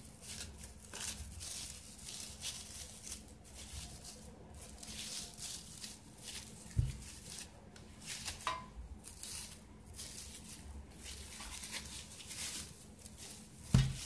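Plastic cling film crinkling and rustling as it is peeled off a chilled log of cookie dough, with two soft low thumps, about seven seconds in and near the end.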